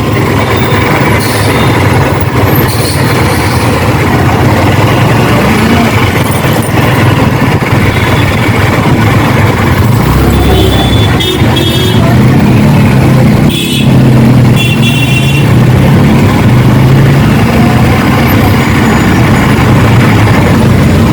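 Yamaha R15's single-cylinder engine running while riding in road traffic, a steady low drone under road and wind noise. Brief horn toots from traffic sound about halfway through.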